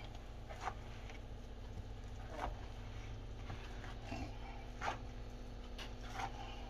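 Wire potato masher pressing boiled potatoes in a plastic bowl: a few soft squishes and light taps at irregular moments, the strongest about two and a half and five seconds in, over a low steady hum.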